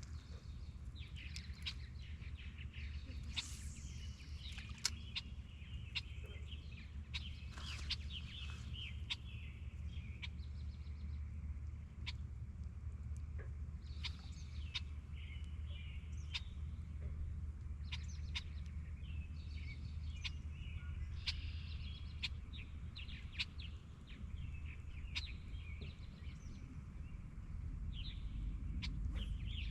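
Birds chirping and calling again and again, with scattered sharp clicks and a steady low rumble underneath.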